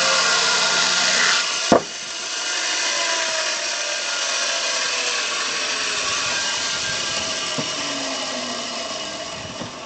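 Homemade electric chainsaw, driven by a pool pump motor, cutting through a block of oak, with a sharp knock about two seconds in as the cut ends. The saw runs on with a whine falling slowly in pitch, then fades.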